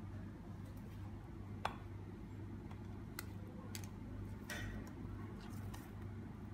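Scattered light clicks and taps as a pet prairie dog moves about in a plastic basket, over a steady low hum.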